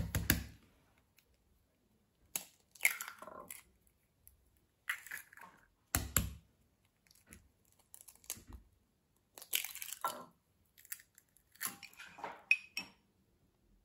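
Eggs being cracked by hand into a ceramic bowl: sharp knocks of the shell against a hard edge, twice, with the crackle of shell being pulled apart and broken in between.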